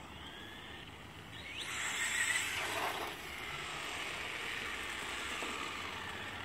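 Electric motor and plastic gears of a toy RC car whining: the pitch rises sharply about a second and a half in as it speeds up, then the whine holds fairly steady.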